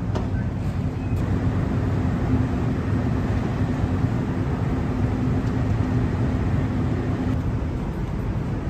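Steady low hum of a docked car ferry's engines and on-deck machinery running at berth, a constant drone over an even rush of noise.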